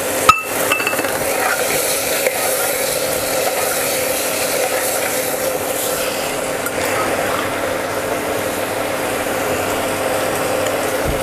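Metal spoon stirring peas and vegetables in a pressure cooker, with a sharp clink against the pot about a third of a second in and a few lighter scrapes and clicks after, over a steady hum.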